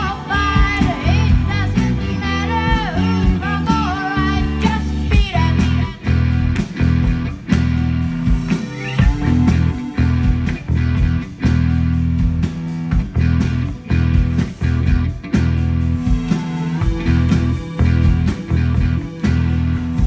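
Live rock band playing: a singer over electric guitars, bass and drums, with the vocal dropping out about five seconds in and the band carrying on with the guitars.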